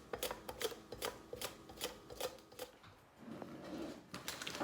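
Cucumber being sliced on a mandoline slicer: quick, even scraping clicks, about five strokes a second. The strokes pause about three seconds in and start again near the end.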